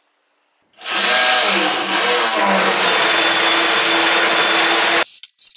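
3D-printed RC jetboat's C3530 1100 kV sensorless brushless motor driving its jet pump at full throttle while the boat is held in place in a bathtub: a loud, steady high motor whine over churning water. It starts about a second in and cuts off sharply near the end.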